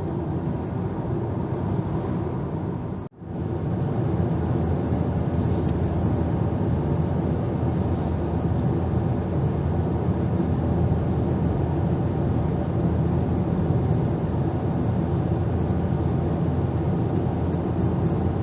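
Steady road and engine noise of a car driving at speed. About three seconds in, the sound cuts out for a moment and then comes back.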